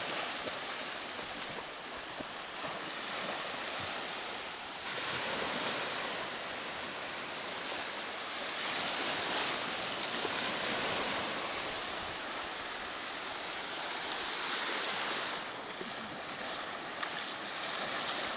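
Small waves breaking and washing up on a sandy beach: a steady surf hiss that swells and eases.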